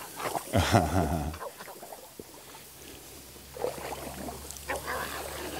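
Water swishing and lapping around a man's legs as he wades through a shallow river, with a brief low murmur from his voice about half a second in.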